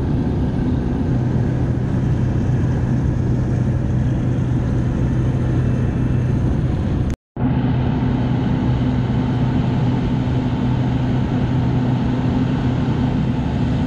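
Single-engine light aircraft's engine and propeller running with a steady low drone, heard from inside the cabin during the climb to jump altitude. About seven seconds in the sound cuts out for a split second at an edit, then carries on the same.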